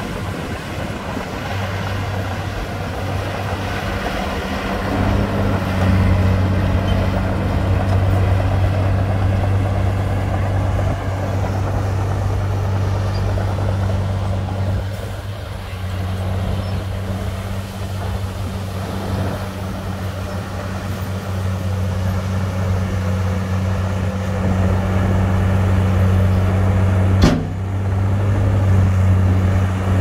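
Komatsu D53P crawler bulldozer's diesel engine running steadily as it works, with a single sharp knock near the end.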